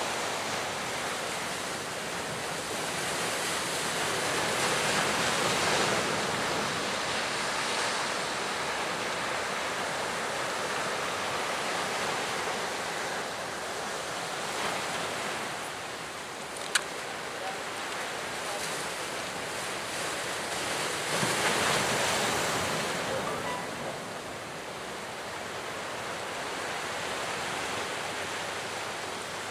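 Sea surf and breaking waves washing steadily, swelling louder twice, about five and twenty-two seconds in, with wind buffeting the microphone. A single sharp click about two-thirds of the way through.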